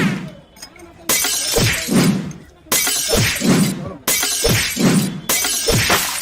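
A shattering crash sound effect played four times in a row, about every one and a half seconds, each one sudden and lasting about a second.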